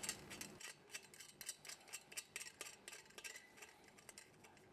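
Faint, irregular small clicks and ticks, a few a second, as screws are turned by hand into the steel cross-brace pieces of a kamado grill's trolley stand.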